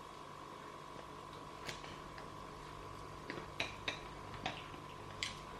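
Kitchenware clinking lightly: about six separate sharp taps spread over a few seconds, over a faint steady hum.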